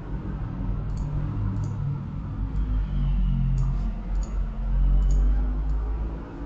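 Several computer mouse clicks over a steady low rumble, which swells for a few seconds in the second half.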